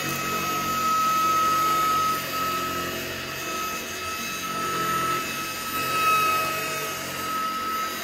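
Tineco A11 Hero cordless stick vacuum running on a carpet: a steady high motor whine over a rush of air, the level rising and falling slightly as the floor head moves back and forth.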